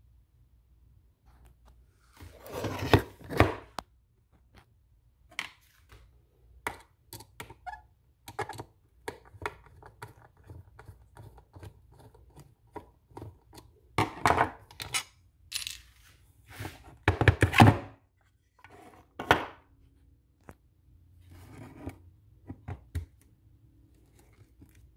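Screwdriver and hard plastic battery housing being worked and handled during disassembly: scattered clicks and light knocks. Louder clattering clusters come about three seconds in, around fourteen seconds and around seventeen seconds.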